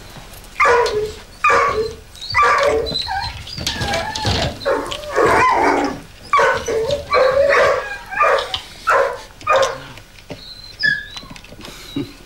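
A dog barking over and over, about a dozen short barks with a few thin whines between them, thinning out near the end.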